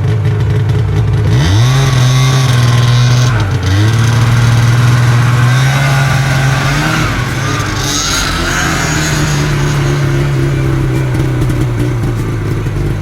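Motor vehicle engine sound effect revving up twice early on, then running steadily at a constant pitch.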